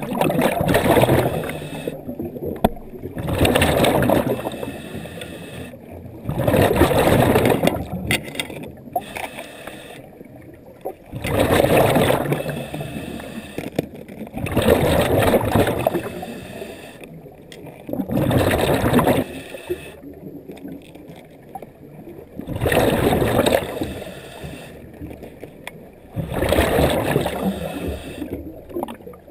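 A diver's exhaled breath bubbling out of the breathing apparatus underwater, in regular gurgling bursts about every three to four seconds, with quieter gaps between breaths.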